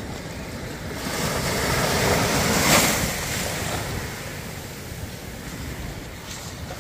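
Ocean surf washing onto the beach, one wave swelling to its loudest nearly three seconds in and then ebbing away, with wind rumbling on the microphone.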